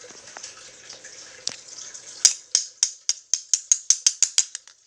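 A spoon striking a charger plug again and again to try to smash it: a couple of single taps, then, about two seconds in, a quick run of some fifteen sharp clicking taps that speed up and fade near the end.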